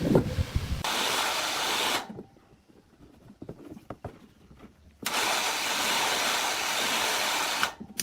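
Two bursts of a loud, even hiss from a jet of air or spray being triggered on and off, one about a second long and one nearly three seconds long, with small clicks and knocks between them.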